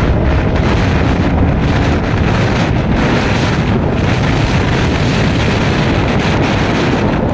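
Heavy wind buffeting on the microphone of a motorcycle moving at road speed, with the bike's running noise mixed in underneath.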